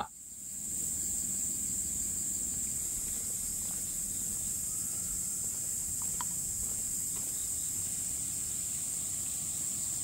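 Forest ambience: a steady, high-pitched chorus of insects, faded in at the start, with a faint low rumble beneath.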